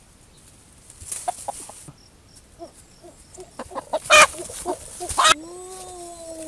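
A rooster clucking, then giving two loud squawks as it is grabbed by hand, followed by a long drawn-out distress call that falls slowly in pitch.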